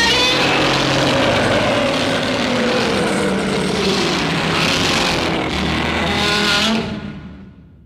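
Heisei-era Godzilla roar sound effect: one long, loud, layered screeching roar that starts suddenly, dips in pitch partway through, and fades away near the end.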